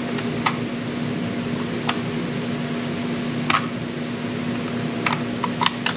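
Steady fan-like mechanical hum with a string of short, sharp clicks, several of them bunched close together near the end.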